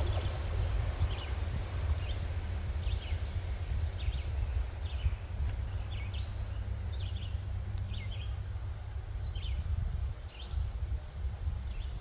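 A songbird chirping over and over, short falling notes about once a second, over a low rumble of breeze on the microphone.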